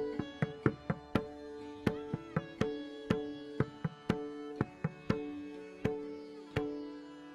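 Pakhawaj, the two-headed Indian barrel drum, played with the hands: sharp ringing strokes in an uneven rhythm, about three a second, over a steady held two-note violin drone.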